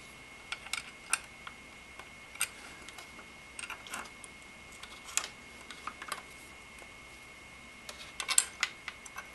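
Scattered light clicks and taps of a CPU-cooler backplate and its small mounting bolts being handled and pushed into place through a motherboard, with a quick flurry of clicks near the end.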